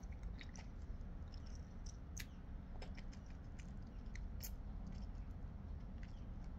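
Mouth sounds of someone sucking the pulp off a cacao seed: small wet smacks and clicks scattered irregularly, with a sharper click about two seconds in and again near four and a half seconds.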